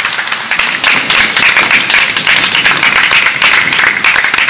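A small group of people applauding: a dense, steady run of hand claps close to the microphone.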